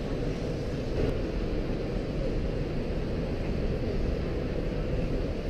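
Steady low rumble of a crowded exhibition hall, with a faint background murmur of voices.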